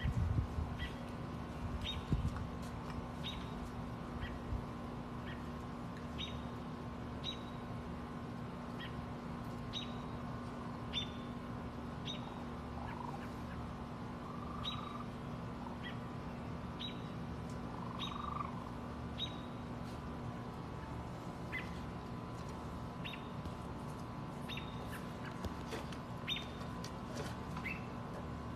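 Short high chirps, each a quick downward flick, repeating about once a second, over a steady low hum.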